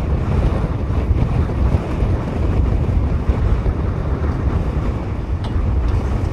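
Wind buffeting the microphone: a steady, gusting low rumble with no distinct events.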